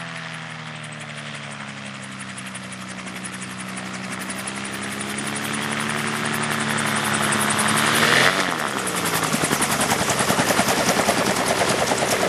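Magni M16 gyroplane with a Subaru engine and pusher propeller, on a low landing approach. Its engine sound grows louder and peaks about eight seconds in as it passes close by, the pitch dropping as it goes past. After that the engine runs close with a rapid, even pulsing.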